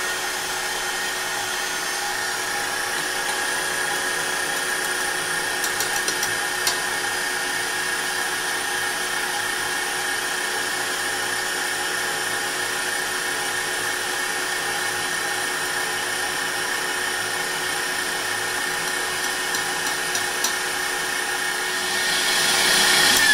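KitchenAid Professional stand mixer running at a steady speed, its wire whip beating egg whites in the steel bowl for meringue. The motor gives a steady, unchanging whine that grows a little louder near the end.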